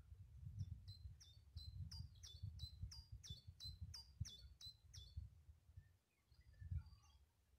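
A songbird singing a run of repeated high notes, each slurring downward, about three a second for some four and a half seconds, then a few faint chirps. Low wind rumble on the microphone underneath.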